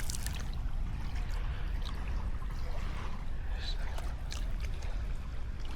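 Light water splashing and trickling around someone wading, over a steady low rumble of wind on the microphone.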